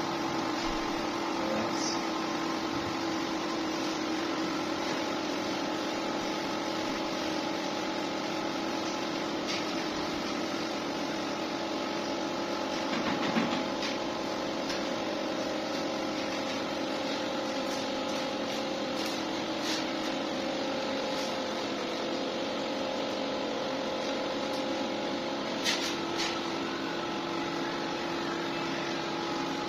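A steady mechanical hum made of several unchanging tones over a constant whir, with a few light clicks and taps over it.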